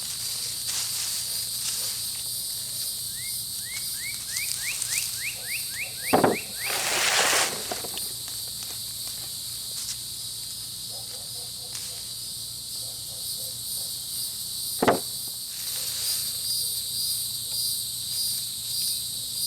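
Steady chorus of insects, a high pulsing buzz, under rustling of hay mulch being worked by hand. A quick series of about ten rising chirps runs from about three to six seconds in. A loud rustle follows, and there are two sharp thumps, one around six seconds in and one around fifteen.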